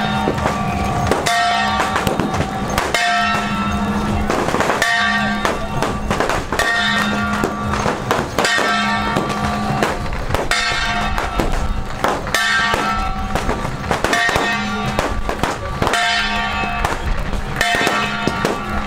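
Strings of firecrackers crackling densely and without pause, under a ringing, bell-like tone that repeats about every two seconds.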